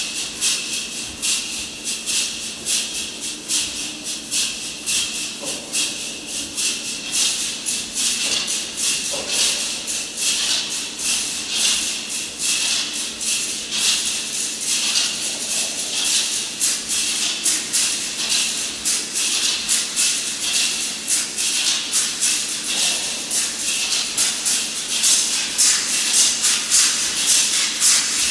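Audience applauding, a dense crackle of many hands clapping that grows louder near the end.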